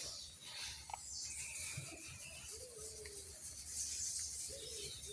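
A bird calling faintly in low, drawn-out notes, twice, about halfway through and near the end, over a soft steady hiss.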